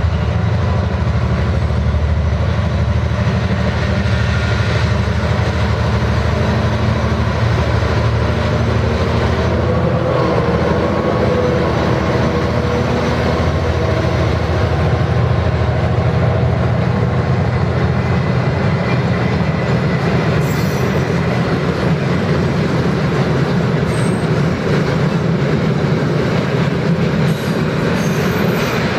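SJ T43 diesel locomotive's engine working steadily as it pulls away with a freight train and passes close by. In the second half the loaded hopper wagons roll past on the rails.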